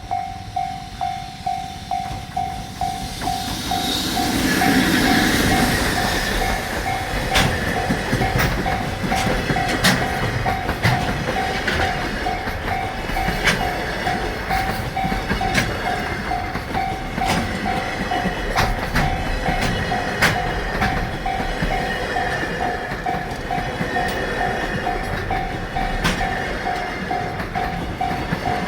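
Level-crossing warning bell ringing, a steady tone repeating a little over twice a second. About four seconds in, a JR Freight EF65 electric locomotive passes. A long rake of Koki container wagons follows, its wheels clicking regularly over the rail joints.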